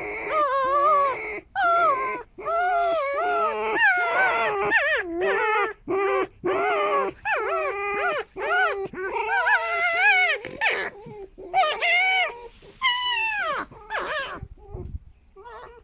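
Two foxes squabbling over a den, trading long runs of high, wavering, squeaky screaming calls that trail off into weaker cries near the end. The owner calls this a completely harmless 'song' in which they cannot hurt each other.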